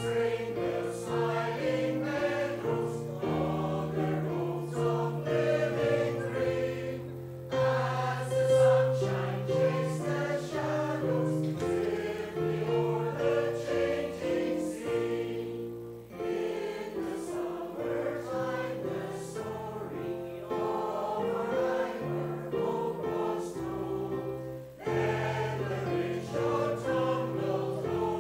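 Church choir singing with keyboard accompaniment under sustained bass notes, in phrases with a short break about every eight seconds.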